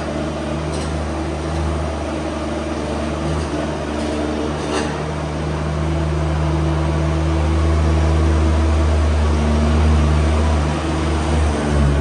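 A machine running steadily with a low, even hum, growing a little louder about halfway through.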